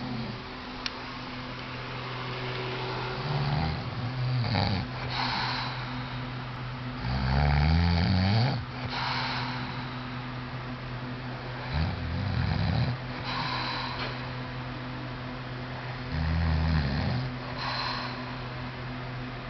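A man snoring in his sleep: four long snores, about one every four to five seconds, each a low rough snore followed by a breathy out-breath, over a steady low hum.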